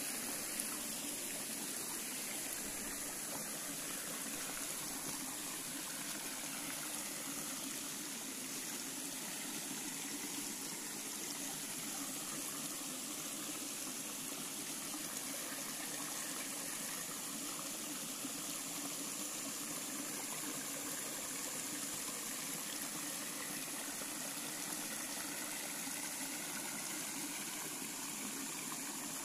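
Small rocky forest stream running steadily, water trickling and splashing over stones into a shallow pool.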